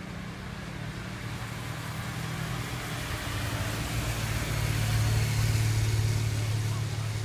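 A car and then a police motorcycle passing on a wet street: engine hum and tyre hiss on wet tarmac, growing louder to a peak about five seconds in as the motorcycle goes by, then easing off.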